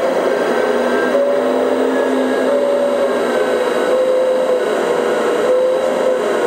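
Electric hydraulic pump of a 1/14-scale RC excavator whining steadily as its log grapple lifts a load of logs. The pitch of the whine steps up and down every second or so as the load on the hydraulics changes.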